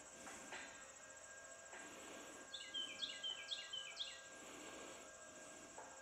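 Crickets or other insects trilling steadily and faintly, with a songbird calling a quick run of about five descending chirps from about 2.5 to 4 seconds in, over a faint steady hum.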